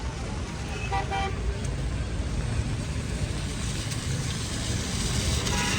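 Road traffic on wet streets in heavy rain: a steady wash of engine rumble and road hiss, with a short car-horn toot about a second in and another near the end.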